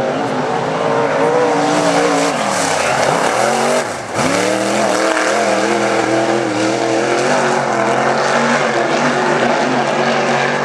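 Dirt-track modified race car's V8 engine running hard on a lap. The engine note falls and climbs back twice about three to four seconds in, then holds steady.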